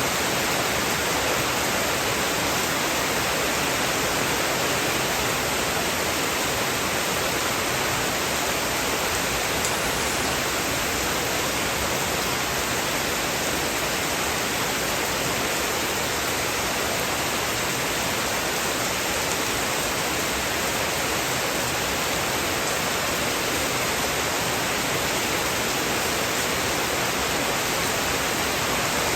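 Heavy rain falling as an even, unbroken hiss.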